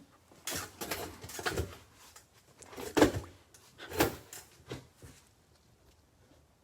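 Cardboard trading-card boxes being shifted and set down on a table: a string of rustles and knocks, the sharpest about three and four seconds in.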